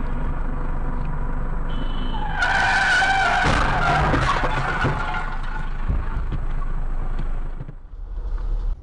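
Dashcam recording of a car crash: steady road and engine noise, then about two seconds in a loud screech of skidding tyres with several crunching impacts as a pickup truck hits the front of the car.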